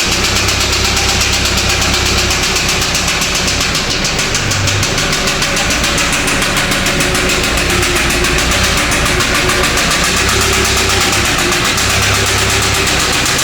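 Mazda B2500 Turbo's 2.5-litre turbo-diesel four-cylinder running with loud, fast, even knocking: the sign of a broken connecting rod small end, with a piece broken off the piston.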